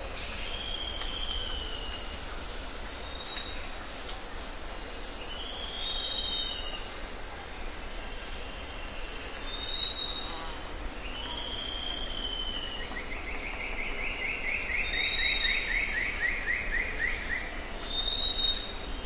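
Birdsong over a steady high insect chirring: short whistled phrases repeat every few seconds, and a long fast trill runs for several seconds about two-thirds of the way through.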